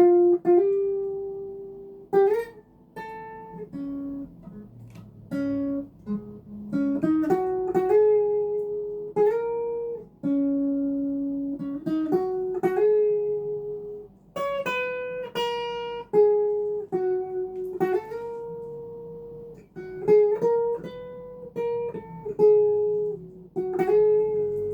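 Legacy Les Paul LP 300 electric guitar with both pickups selected, played in a clean tone: a slow single-note melody of sustained notes, with a few string bends.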